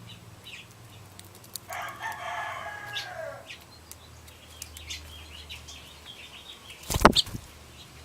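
A rooster crows once, about two seconds in, for about a second and a half, among scattered short high chirps and clicks. Near the end comes a single loud thump.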